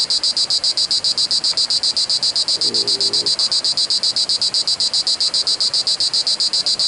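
Cicada singing close to the microphone: a loud, high-pitched song of fast, even pulses, roughly eight to nine a second, held steady throughout.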